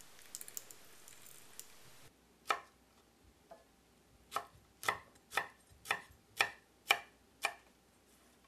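A few light clicks over a soft hiss, then a chef's knife chopping green bird's eye chillies on a wooden cutting board: eight sharp knocks, about two a second, starting a couple of seconds in.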